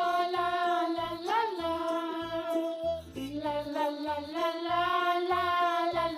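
Children's background music: a held, gliding melody line over a steady low beat.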